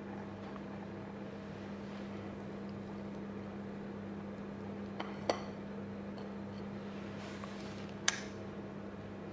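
A steady low machine hum, with two light clicks about five seconds in and a sharper click near the end.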